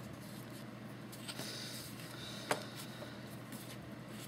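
Needle and thread being worked through pierced cardstock by hand: a faint hiss of thread drawn through the paper about one and a half seconds in, then a sharp click about a second later, over a steady low hum.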